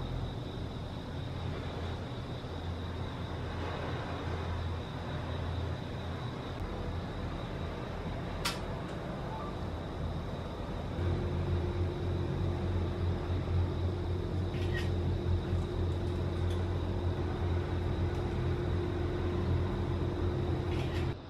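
A steady low mechanical hum, like engines or machinery running. About halfway through a second steady droning tone joins in and the hum grows louder. A few faint clicks are heard.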